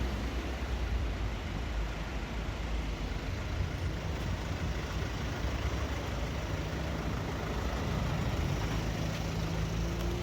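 Motor vehicle running: steady engine and road rumble, with a low engine note becoming clearer near the end.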